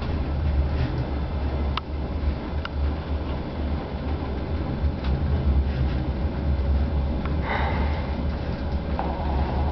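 Cab of a DR1A diesel multiple unit under way: steady low rumble of the diesel and running gear, with a few sharp clicks from the track. A short hiss comes about seven and a half seconds in, and a higher steady tone starts near the end.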